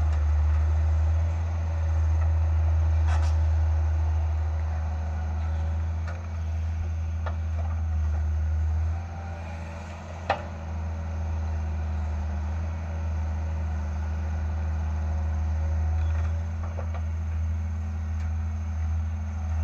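Diesel engine of a Hitachi EX100 hydraulic excavator running with a steady low hum while it digs and loads soil, easing off about nine seconds in. A few sharp clanks stand out over it, the loudest about ten seconds in.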